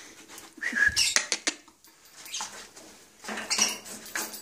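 A pet cockatoo clambering along a rope perch. About a second in there is a brief call and a few sharp clicks, followed by scratchy rustling bursts.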